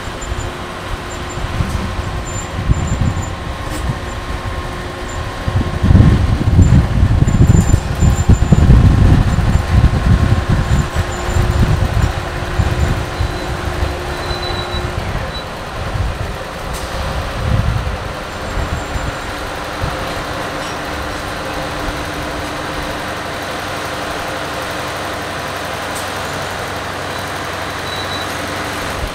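Diesel genset switcher locomotive running and moving slowly, its low engine rumble swelling for several seconds about a quarter of the way in, then settling to a steady hum.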